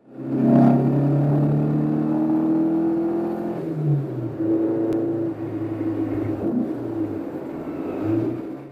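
Porsche 356 Speedster's air-cooled flat-four engine pulling hard: the engine note climbs steadily for about three and a half seconds, drops at a gear change, then runs on at lower, steadier revs with a couple of brief rises.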